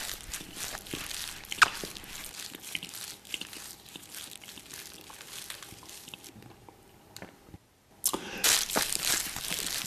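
Plastic packet of cotton pads crinkling and crunching as it is squeezed in the hands, with one sharp loud click about a second and a half in. The sound drops out briefly near the end and comes back louder.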